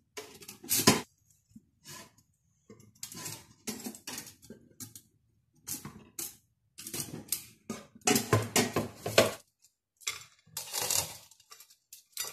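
Wire-mesh rotisserie chips basket of an air fryer oven clanking and rattling against the oven's metal fittings as it is worked free and lifted out. The sound is a run of irregular metallic clinks and clatters, loudest near the end.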